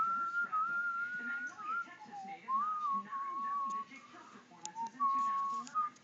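A person whistling a slow tune of a few long held notes, dipping lower about two seconds in and again near five seconds before rising back.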